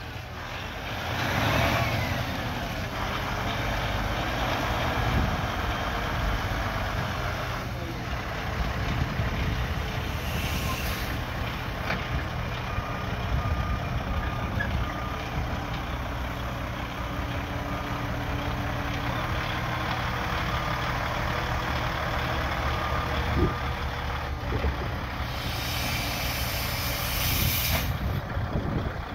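Peterbilt Model 388 truck tractor's diesel engine running as the truck is driven around the lot, with a reversing alarm beeping at an even pace through the middle stretch.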